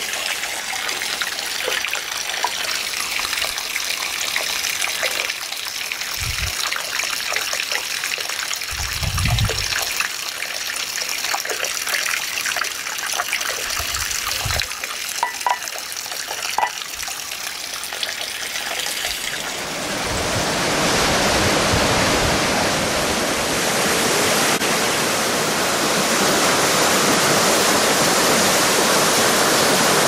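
Thin stream of water from a bamboo spout trickling and splashing into a stone water basin, with a few soft low thumps and light clicks. About two-thirds of the way through, this gives way to the steady, louder rush of a waterfall of about ten metres falling into its pool.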